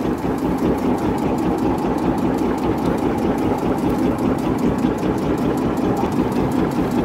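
Small boat engine idling with a steady, even pulse.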